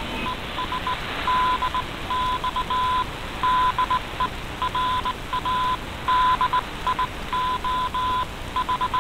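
Morse code: a single tone of about 1 kHz keyed in short and long beeps, played in a shortwave broadcast and heard through an AM receiver over steady shortwave hiss.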